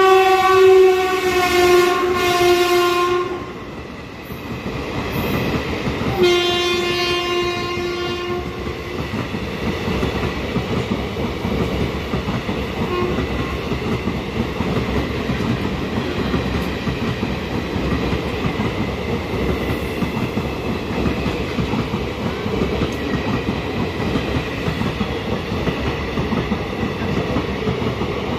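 Indian Railways electric locomotive horn sounding two long blasts, the first about three seconds and the second about two and a half seconds, as the train runs through at speed. After that, the steady rumble and clickety-clack of its sleeper coaches passing close by.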